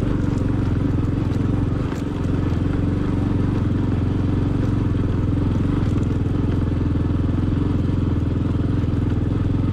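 Motorcycle engine running steadily as the bike is ridden over a rough stone-paved track. The engine note dips briefly about two seconds in, with a light knock.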